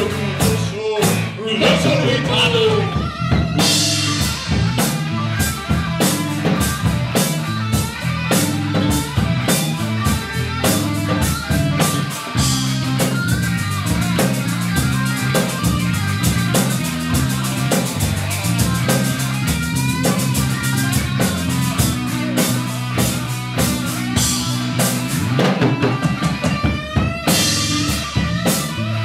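Live rock band playing an instrumental passage: a drum kit keeping a steady beat under an electric bass line and electric guitar.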